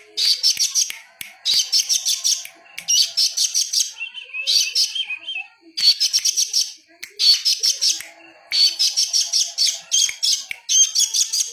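A songbird singing a string of short phrases of fast, high chattering notes, each phrase lasting about a second, with brief pauses between them.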